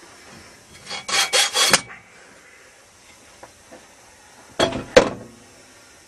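Electrical tape pulled off the roll in a few quick rasping pulls about a second in, then another short rip ending in a sharp click about five seconds in.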